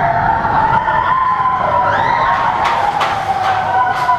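Big Thunder Mountain Railroad mine-train coaster's steel wheels squealing on the track in a long, steady high screech, with a few sharp clanks in the second half.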